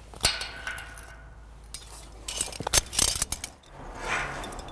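Metal clinking and clicking of a lineman's fall-protection harness and lanyard hardware (snap hooks and D-rings), in sharp knocks with a dense cluster a little past halfway. A short rush of noise follows near the end.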